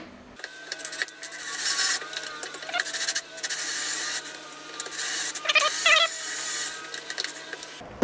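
Electric drill running under load, boring down through a small metal mounting plate along a pilot hole; it runs steadily for about seven seconds and stops just before the end.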